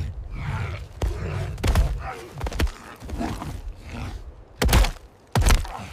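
Thuds and grunting of a scuffle as a man grapples an antelope to the ground, with the two loudest thuds near the end.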